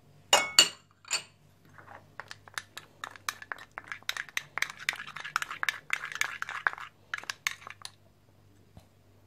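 Metal spoon clinking and scraping against a small glass bowl while stirring baking soda into yogurt. There are a few sharp clinks about half a second in, then a quick run of clinks for several seconds that stops near the end.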